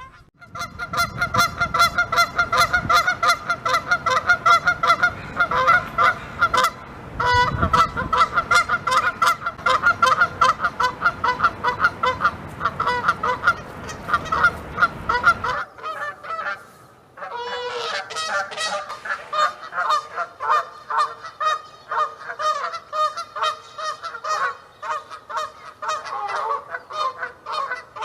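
Canada geese honking, a rapid run of many calls a second without pause. About 16 s in the calls break briefly, then resume without the low background rumble and slightly lower in pitch.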